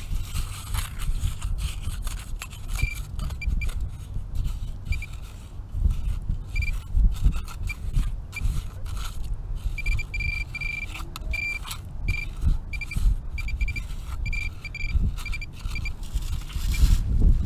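Minelab Vanquish 540 metal detector giving short, repeated high beeps on a target, over scraping in beach sand and gravel and a low uneven rumble on the microphone.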